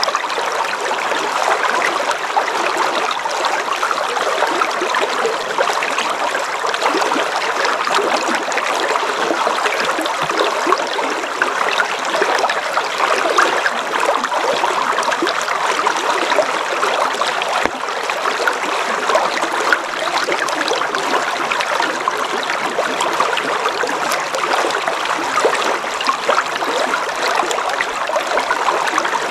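River water flowing in a steady rush, with fine, constant trickling and babbling.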